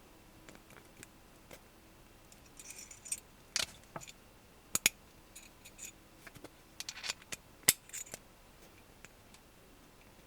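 TSUBAKI TCM-201S 1/4-inch-drive gearless cam wrench being worked back and forth by hand. It gives no steady ratchet ticking, only irregular short metallic rasps and three sharp clicks.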